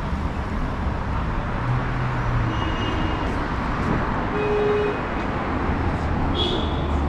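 Steady city street traffic: engines and tyres of cars on a busy avenue, heard as a continuous low hum. A short steady tone sounds about four and a half seconds in.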